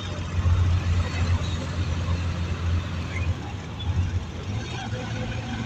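Steady low rumble of a vehicle engine, with an even hiss of noise over it.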